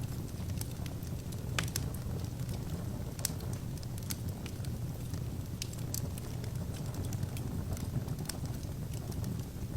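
Wood fire burning in an open fireplace: a steady low rumble of the flames with irregular sharp crackles and pops from the burning logs.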